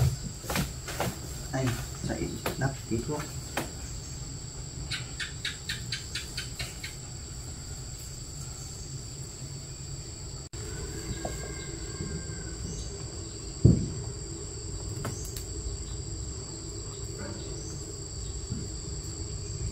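Insects trilling steadily on two high tones, with scattered knocks and clicks in the first few seconds, a quick run of ticks a little later, and a single thud about two-thirds of the way through.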